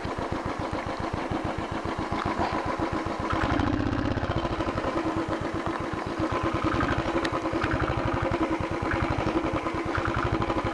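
Motorcycle engine running at low revs with an even, pulsing beat, growing louder about three and a half seconds in.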